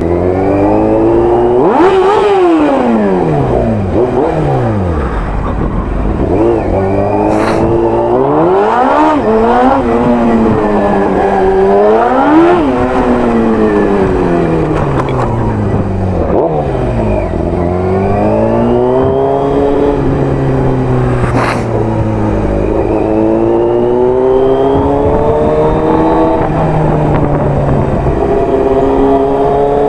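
Motorcycle engine at low speed, its pitch rising and falling again and again as the throttle is opened and closed. Two short sharp clicks stand out, one about a third of the way in and one about two thirds in.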